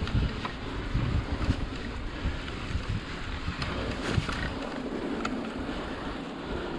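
Wind buffeting the camera microphone and mountain bike tyres rolling over a dirt trail, with a few light clicks and rattles from the bike. The low rumble eases about two-thirds of the way through.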